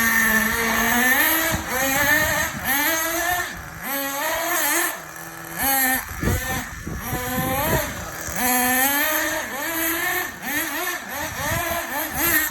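Nitro-fuelled radio-controlled car engine running and revving, its pitch repeatedly rising and falling back.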